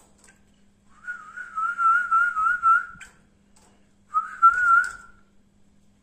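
Warbling whistle in two phrases: a quavering tone held about two seconds, then after a short pause a shorter phrase of about a second.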